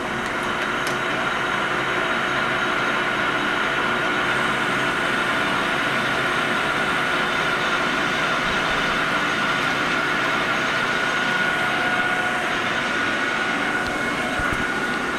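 Metal lathe running steadily with a constant whine, its four-jaw chuck spinning, while it takes a light final finishing cut along an O1 tool steel bar.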